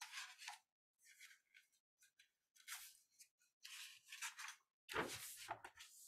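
Faint paper rustling as the pages of a picture book are turned and handled: a series of short crinkles, the fullest about five seconds in.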